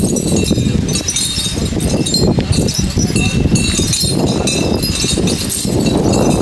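Metal chains on a walking elephant clinking and jingling in small, irregular clinks over a loud, steady background noise.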